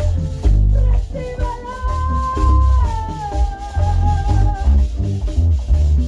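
Saxophone melody over a backing track with a heavy bass beat and percussion; the saxophone holds one long note from about a second and a half in until nearly five seconds, dipping slightly in pitch partway through.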